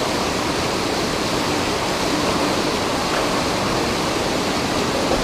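Fountain waterfall: water falling steadily into its basin, a constant even rush.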